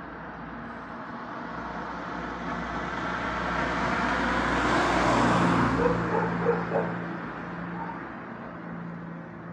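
A car passes along the street: the tyre and engine noise swells to a peak about halfway through, then fades. A dog gives a few short barks just after the car goes by.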